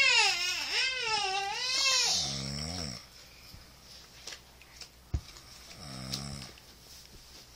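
Someone asleep snoring: two low snores about four seconds apart, the first a couple of seconds in and the second about six seconds in. A high, wavering wail fills the first two seconds, and there is a single sharp click about five seconds in.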